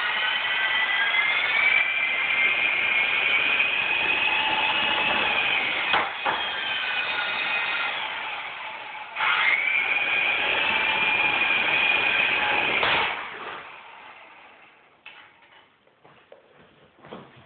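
Small remote-control helicopter's motor and rotor whining, its pitch rising as it spools up. It eases off, surges back sharply about nine seconds in, then winds down about thirteen seconds in, followed by a few light knocks.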